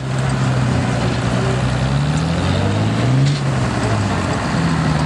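Engine of a small tracked snow machine running as it drives past, its pitch climbing about two to three seconds in and then easing back down.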